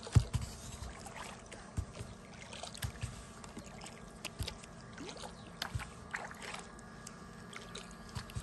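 Water lapping and trickling against the hull of a kayak drifting on a calm lake, with scattered small splashes and knocks; a low knock just after the start is the loudest.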